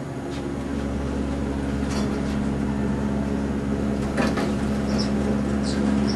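Steady low mechanical hum with a few faint knocks in the second half.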